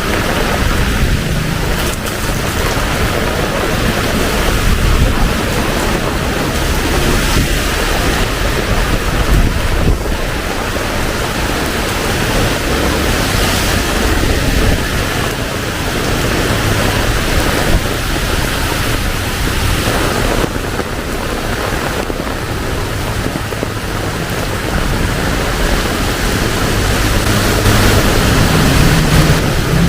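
Heavy tropical rain pouring steadily, a dense even hiss with no let-up. A low rumble of a passing vehicle's engine grows near the end.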